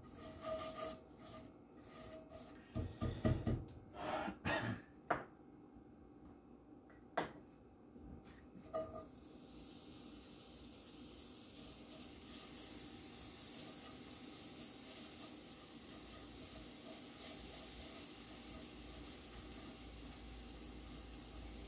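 Silicone spatula scraping and knocking in a cast-iron skillet, with a few sharp clicks. About nine seconds in, chopped garlic goes into the hot oil and a steady sizzle starts and carries on while it is stirred.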